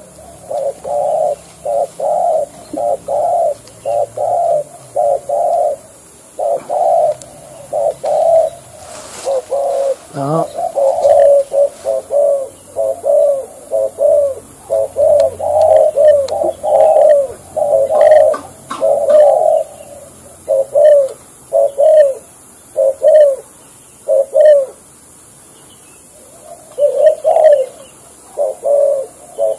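Caged spotted doves (cu gáy) cooing in a long run of short, low coos, about two a second, with a break of a couple of seconds near the end: a decoy dove calling with a wild dove set beside it.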